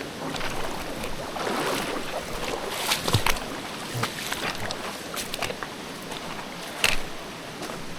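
Feet wading and splashing through a shallow, cold creek over the steady rush of flowing stream water, with a few sharper splashes about three seconds in and again near the end.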